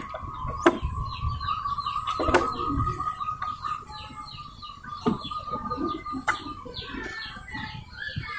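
Small birds chirping, many quick repeated chirps throughout, over a steady high tone that stops about seven seconds in, with a few sharp clicks.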